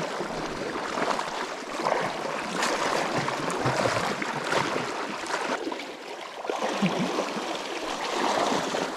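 Legs wading through a shallow gravel-bottomed stream: water sloshing and splashing with each stride, in uneven surges about once a second over the stream's steady flow.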